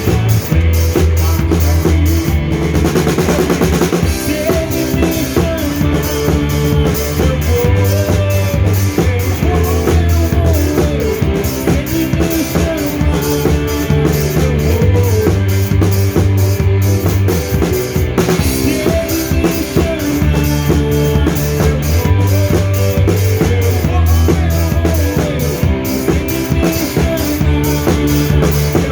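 Live band playing an instrumental passage with no singing: a drum kit keeps a steady, busy beat under held bass notes and melody from other instruments.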